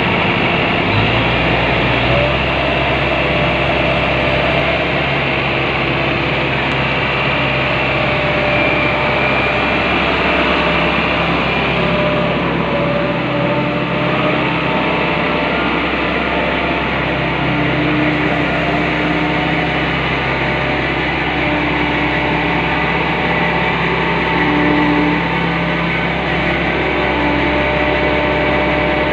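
Walking excavator's diesel engine running steadily. Whining tones come and go over it as the hydraulics work the legs.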